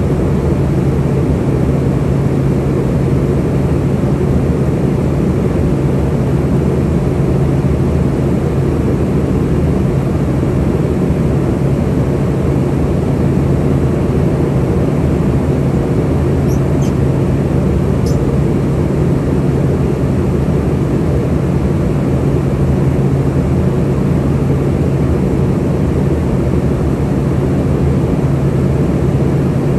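Cabin noise of an Embraer ERJ145 in cruise: a steady rush of airflow and its rear-mounted Rolls-Royce turbofans, with a constant low drone underneath.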